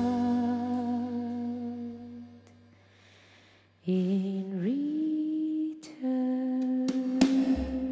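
Slow, wordless sustained notes from voice and cello: a long held note fades out about two and a half seconds in, and after a short pause a new note dips, rises and settles into another long held tone.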